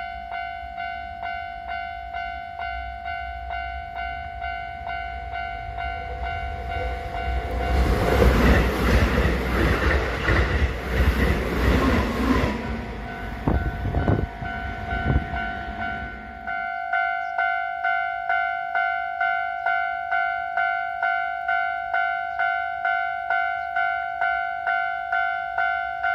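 Japanese railway level-crossing warning bell ringing in a steady repeating ding, about one and a half strikes a second. Starting about a third of the way in, a Keisei train passes for roughly nine seconds, with wheel clicks over the rail joints near the end of its pass. The bell keeps ringing after the train has gone.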